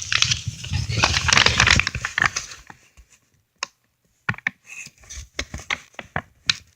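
Plastic packaging crinkling and rustling as it is handled, dense for the first couple of seconds, then a pause and scattered short crackles and clicks.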